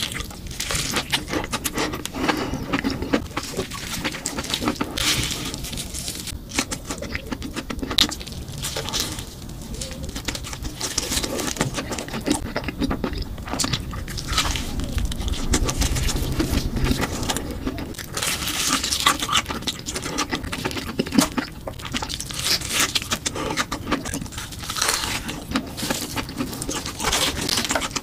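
Close-miked eating sounds: crunchy bites and steady chewing of crispy, crumb-coated fried sticks and corn dogs, a dense run of irregular crackles and crunches with no speech.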